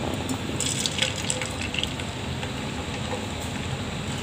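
Beaten eggs poured into hot oil in a non-stick frying pan, hissing steadily as they hit the oil and spread, with a few light clicks about a second in.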